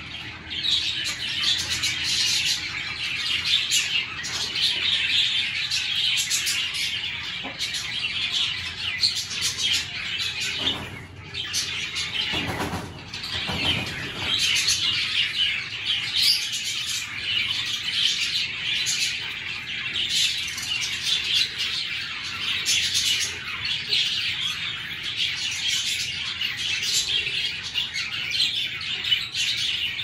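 Aviary birds chirping and chattering in a dense, continuous chorus of high twitters. About twelve seconds in, a fuller rustling whoosh rises for a couple of seconds.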